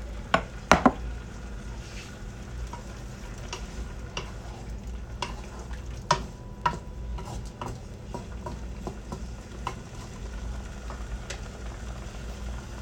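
Wooden spoon stirring chicken, carrots and potatoes in a nonstick frying pan, clicking and scraping against the pan, over a steady sizzle of the food cooking in freshly added water. A few sharp knocks in the first second are the loudest sounds.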